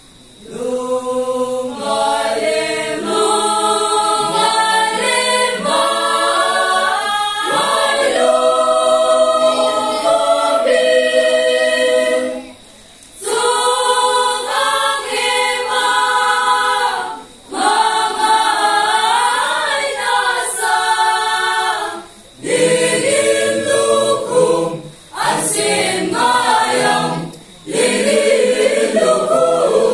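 Mixed choir of men and women singing a cappella, holding chords in phrases with brief pauses between them.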